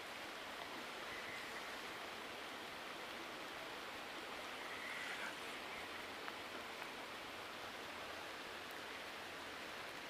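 Faint steady hiss of creek water with light rain falling on its surface.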